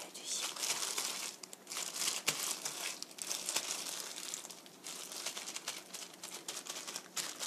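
Clear disposable plastic glove crinkling and rustling in irregular crackles as the gloved hand presses and rubs black pepper into raw boneless chicken thigh fillets.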